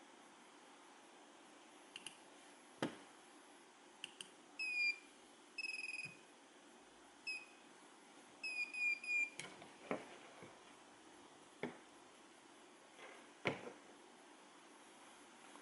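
Faint short high electronic beeps, first singly and then several in quick succession, among a handful of sharp clicks and knocks from handling.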